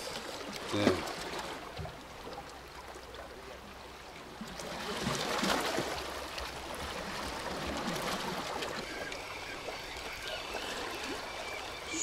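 Small sea waves washing and lapping against the boulders of a rocky shore, a steady watery wash that swells a little around five seconds in, with one short thump about a second in.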